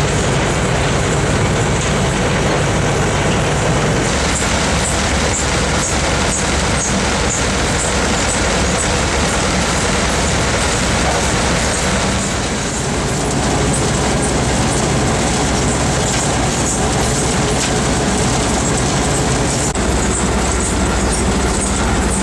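BlueMAC fines clean-up plant running: a steady mechanical rumble of conveyors and screens, with a dense, gravelly clatter of trommel fines travelling over them.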